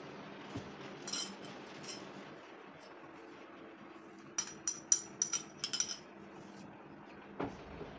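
Metal spoon clinking and scraping against a ceramic plate while scooping siopao filling: a couple of clinks about a second in, then a quick run of about eight sharp clinks, and a duller knock near the end.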